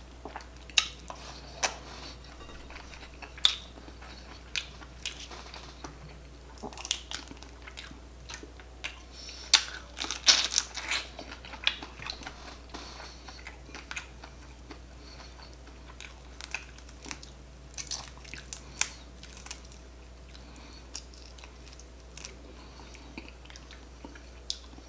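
Close-miked eating of shell-on jumbo shrimp: chewing and biting with irregular sharp crackles of shrimp shell being cracked and peeled, busiest about ten seconds in.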